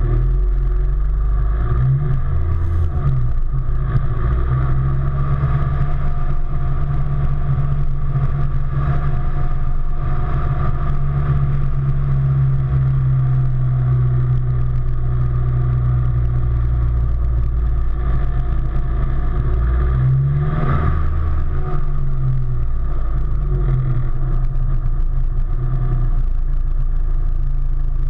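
Vehicle engine running steadily as it drives along, with road noise underneath. The engine note dips and climbs back twice, about two seconds in and again about twenty seconds in.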